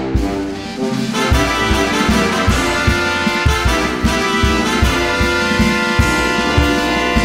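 Music led by brass instruments such as trumpet and trombone over a drum beat.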